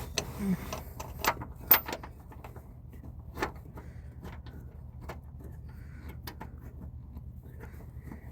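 Scattered metallic clicks and knocks of hand tools and mount hardware being handled while fitting an engine mount, louder at first and then lighter and irregular, over a steady low hum.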